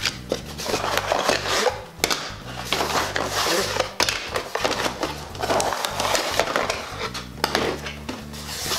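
Plastic toy molds and packaging rustling and clattering as they are handled and unpacked, in uneven bursts with occasional sharp clicks.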